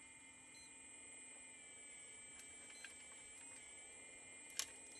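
Faint, steady high whine of the Kabolite K970 RC excavator's hydraulic pump as the boom swings the loaded bucket round, its pitch wavering briefly a few times, with a few light ticks and one sharp click near the end.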